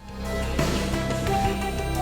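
Background music with a steady beat and sustained notes, starting abruptly at full level.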